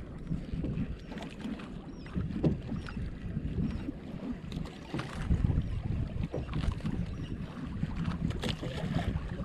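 Wind buffeting the microphone and sea water lapping around a small outrigger fishing boat, with scattered light knocks and clicks.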